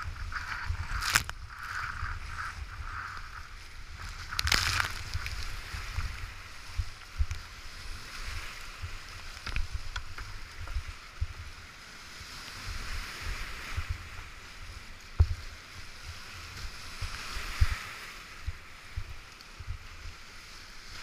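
Whitewater rapids rushing around a kayak, heard through a helmet-mounted GoPro, with paddle strokes and water striking the camera housing as frequent low thumps. Two sharp, loud splashes stand out about a second and four and a half seconds in.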